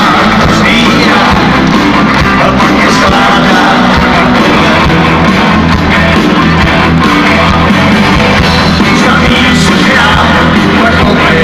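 Live rock band playing loudly: electric guitars and drums with a lead singer, heard over the concert sound system.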